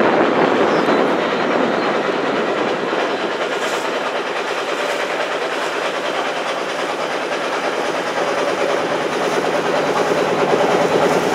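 Engine of a river boat running steadily under way, a fast even chugging.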